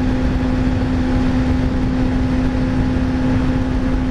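Kawasaki ZX-6R sport bike's inline-four engine running at a steady highway cruise, one even drone, over heavy wind rush.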